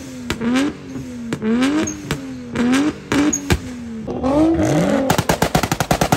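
Car engine revved in a series of quick throttle blips, the pitch rising and dropping again and again. Near the end a rapid string of sharp pops follows.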